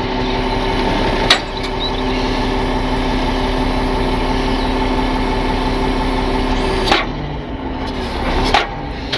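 Rollback tow truck's hydraulic wheel-lift raising the rear of a semi truck: the engine-driven hydraulic system runs with a steady whine under load, with a clunk about a second in. The whine stops with another clunk about seven seconds in.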